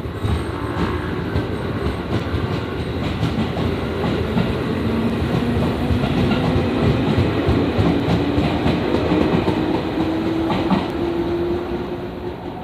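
JR Nara Line electric train running past close by, wheels on the rails, with a motor whine that rises slowly in pitch through the second half.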